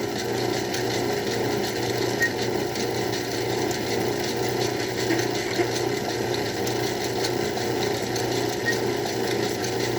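Craftsman 109 lathe running under load as a 1/2-inch drill bit cuts through the spinning workpiece: a steady mechanical whir with a fast, fine clatter.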